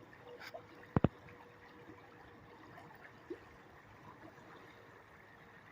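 Faint steady rush of a shallow river running over its bed, with two sharp knocks close together about a second in.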